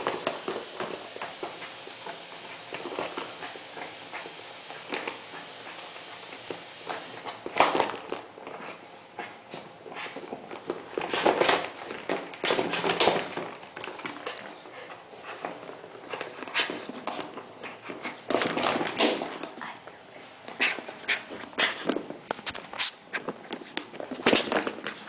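A Yorkshire terrier puppy playing with a rubber chicken toy: scuffling and tapping on a hard floor, with several louder noisy bursts that come and go.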